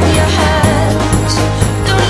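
Background music: a song with a steady bass, a melody and a regular beat.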